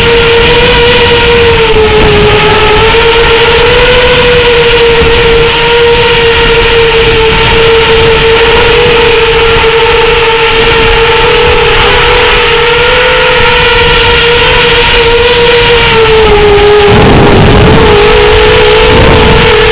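FPV quadcopter motors and propellers whining in flight, a steady high-pitched drone that rises and falls slightly with throttle, with a brief lower dip and rumble near the end.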